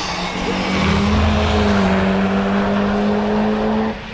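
A car passing at speed on a race track, its engine note loud and steady, dipping slightly in pitch as it goes by. It drops away sharply near the end.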